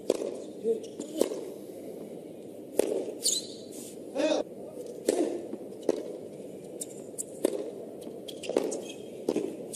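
Tennis rally on a hard court: a string of sharp racket-on-ball hits, roughly a second apart, over a low murmur of court ambience.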